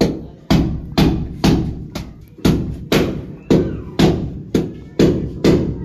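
Hammer blows striking at a brick wall in a steady rhythm, about two a second, each ringing out briefly before the next.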